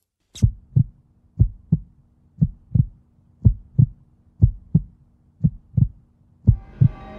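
Heartbeat sound effect in a soundtrack: paired low thumps, about one beat a second, over a faint steady hum, after a single sharp click. Near the end, sustained music chords swell in under the beats.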